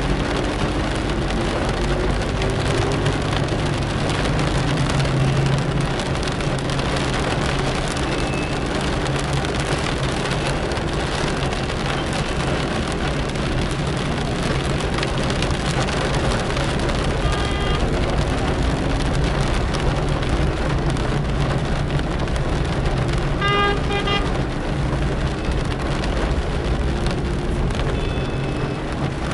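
Rain and wet-road tyre noise over a car's running engine in city traffic, heard from inside the car. Two short horn beeps sound, one a little past the middle and one about four-fifths through.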